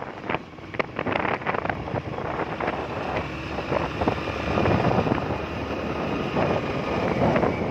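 Wind buffeting the microphone of a moving motorbike, over the steady run of its engine and tyre noise on the road.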